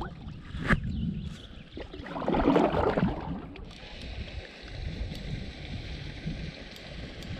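Wind buffeting the microphone over moving water, with a sharp knock about a second in and a louder rush of water about two to three seconds in; after that it settles into a steady hiss.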